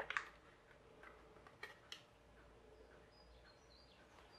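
Small sharp plastic clicks and taps as a screwdriver works at the seam of a hair dryer's plastic casing: a quick cluster at the start, then a few single clicks over the next two seconds. Faint short high chirps near the end.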